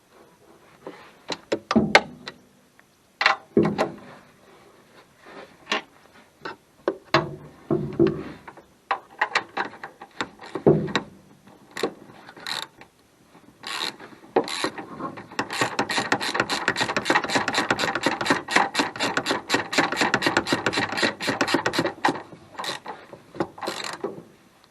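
Ratchet wrench clicking as bolts are worked, with scattered knocks and clinks of metal tools and parts. About fifteen seconds in comes a fast, steady run of ratchet clicks, about seven a second, lasting some seven seconds.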